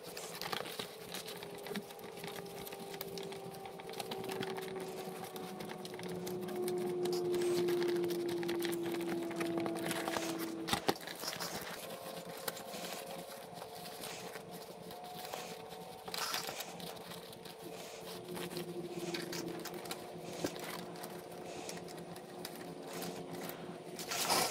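Shift boot and its plastic trim plate being handled and pressed into the center console: rustling with scattered clicks, one sharper click about eleven seconds in. A faint hum that slowly drops in pitch runs underneath.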